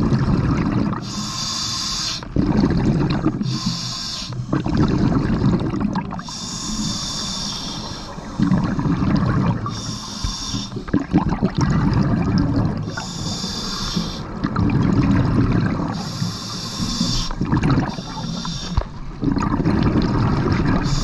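Scuba diver breathing through a regulator underwater: a hissing inhale alternating with a low bubbling exhale, about one breath every three seconds, six breaths in all.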